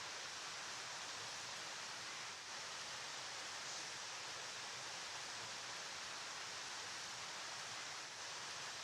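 River water flowing: a steady, even rushing noise.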